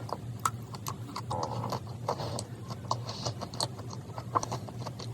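Close-up eating sounds: chewing a soft, sticky dried-persimmon and cream-cheese dessert, with a run of short, irregular wet mouth clicks.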